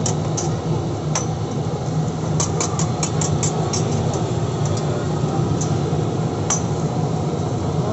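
Metal spatula clinking and scraping on a steel flat-top griddle as cooked egg is scooped onto buns, with a quick run of taps about two and a half seconds in and single clinks later. Steady background noise from the busy shop runs underneath.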